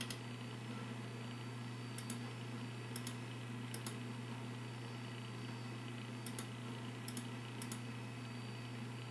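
Steady low electrical hum of running equipment, with a few sharp light clicks scattered through it, several in quick pairs.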